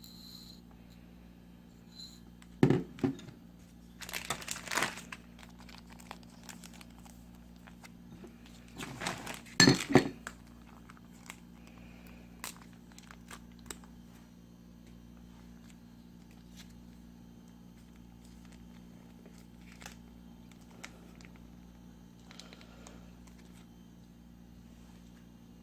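Close-miked eating of cold makguksu ramen noodles: a short knock, then two loud noisy bursts of slurping about 4 and 9 seconds in, with soft chewing and small mouth clicks between.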